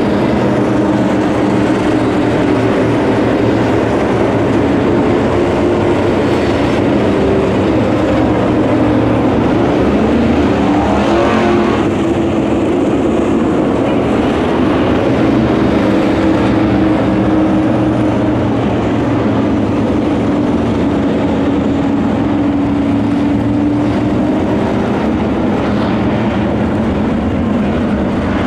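A field of USRA B-Modified dirt-track race cars with V8 engines running at speed around the oval, several engine notes overlapping in a steady din. About eleven seconds in, one car's note sweeps in pitch as it passes close by.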